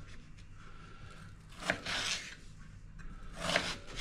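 Kitchen knife cutting through a peeled raw potato and knocking on a wooden chopping board: two cuts, a little under two seconds apart.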